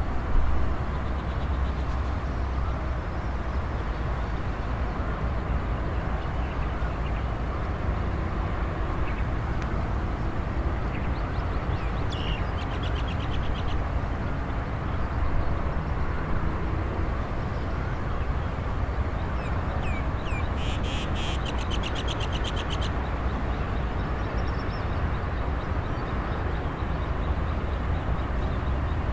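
Steady low rumble of distant traffic across open fields. A bird calls twice in fast rattling series, briefly about twelve seconds in and again for about three seconds near twenty seconds.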